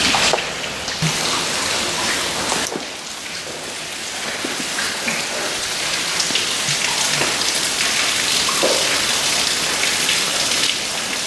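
Steady storm rain falling, a dense hiss with many separate drops clicking close by.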